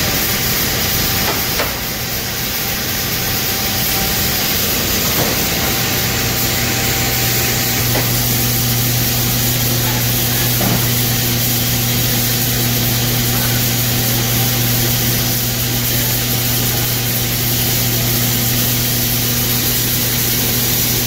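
Blueberry sorting line running: a steady machine hum under a loud hiss, with the low hum growing stronger about six seconds in.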